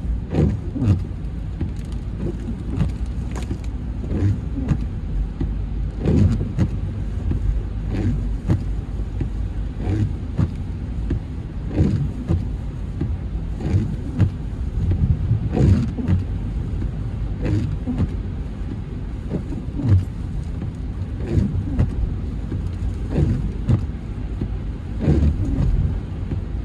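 Car driving, a steady low rumble with frequent irregular thumps and knocks.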